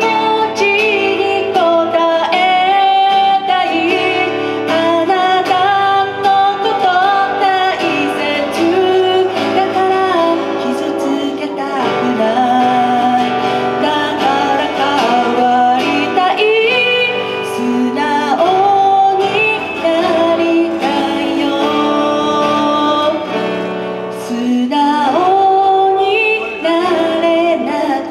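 A woman singing a song while accompanying herself on an acoustic guitar, performed live into a microphone.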